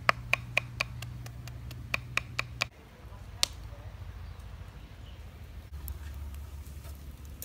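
Kitchen knife slicing carrot on a wooden cutting board: crisp, even knocks about four a second, with a short break in the middle. After about three seconds they stop, and there is a single click followed by a low steady rumble.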